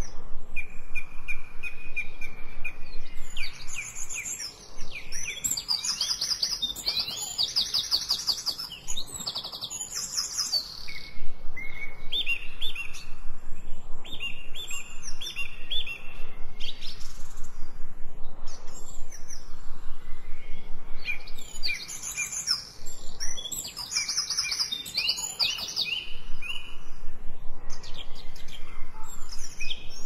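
Songbirds singing and chirping, several overlapping phrases: runs of evenly spaced notes alternating with quick, high trills.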